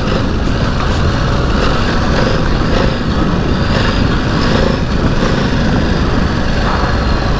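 Ducati DesertX Rally's 937 cc twin-cylinder engine running as the bike is ridden over a rough off-road trail, under a steady, loud rush of noise.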